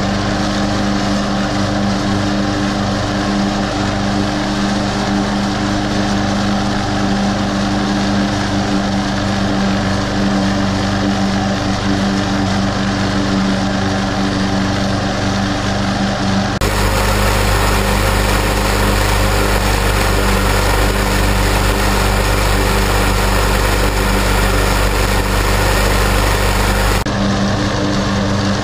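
Snapper walk-behind mower's Briggs & Stratton overhead-valve engine running steadily under load while cutting grass. For about ten seconds past the middle, a heavy low rumble and hiss, typical of wind on the microphone, sits over the engine.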